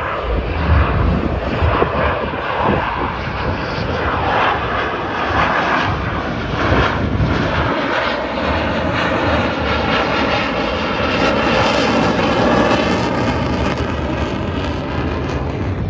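Fixed-wing airplane engine droning as the plane flies by, with a faint steady pitched note in the second half.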